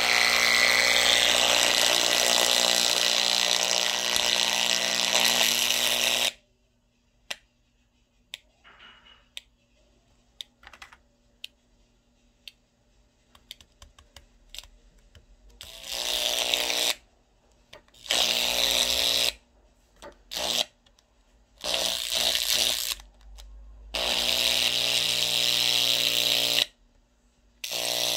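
Small paper-cone loudspeaker driven far past its limit with a bass signal, giving out a loud, harsh, heavily distorted buzzing tone: the sound of a speaker being blown out. The buzz stops about six seconds in, leaving near silence with a few faint clicks, then comes back in about six bursts of one to three seconds.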